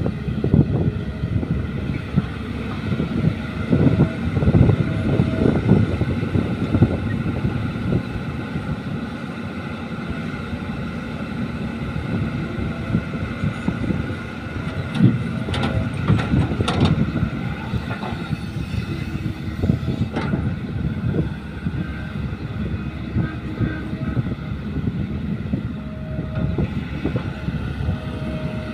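Caterpillar E120B hydraulic excavator's diesel engine running steadily under load as it digs and swings bucket loads of soil into a dump truck. A few sharp knocks come about halfway through as earth and the bucket strike the truck's steel bed.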